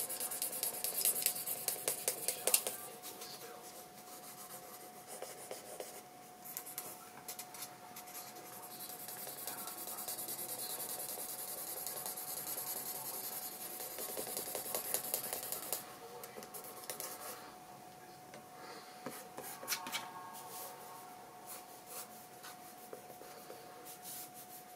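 Pencil scratching and rubbing on sketchbook paper in quick back-and-forth strokes. The strokes are busiest in the first few seconds and again for several seconds mid-way, then sparser, over a steady faint hum.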